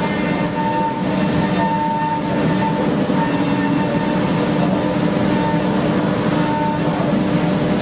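Steady mechanical drone of industrial machinery running, with a constant hum and a few held tones over a noisy rumble.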